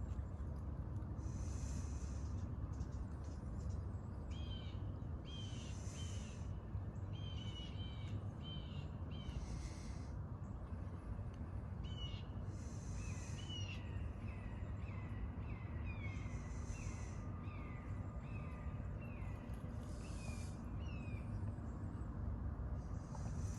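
Red-shouldered hawk calling over the steady rush of a flowing creek: short, downward-sliding calls, mostly spaced out, then a fast run of about eight in a row through the middle. A brief high hiss comes back about every four seconds.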